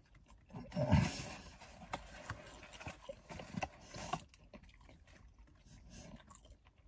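A man chewing a mouthful of burger, with wet lip smacks and a short grunt-like 'mm' that drops in pitch about a second in; the chewing noises fade out after about four seconds.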